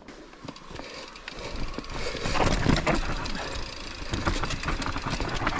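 Mountain bike moving down a dirt trail: tyre noise with rattling and clicking from the bike, growing louder about two seconds in.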